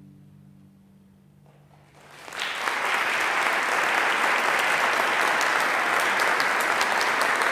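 The last low notes of an orchestra's final chord die away into a short hush, then the audience starts applauding about two seconds in and keeps up steady applause.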